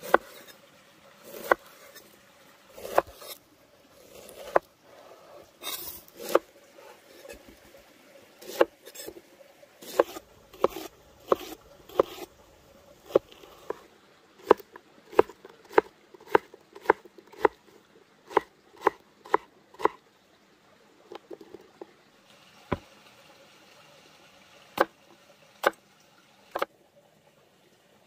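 Large knife cutting fresh pineapple and bell pepper on a wooden cutting board: sharp knocks of the blade hitting the wood, with a steady run of about two chops a second in the middle and scattered single cuts before and after.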